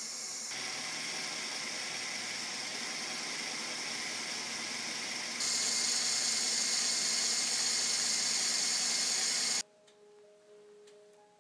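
Electric motors and plastic gear train of a Lego Technic Unimog model running steadily as it crawls, with a hissing whine. It gets louder about five seconds in and cuts off suddenly near the end, leaving a few faint ticks.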